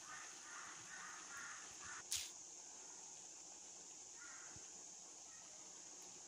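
Faint harsh bird calls: several in quick succession in the first two seconds and one more about four seconds in, over a steady hiss. A single sharp click sounds just after two seconds.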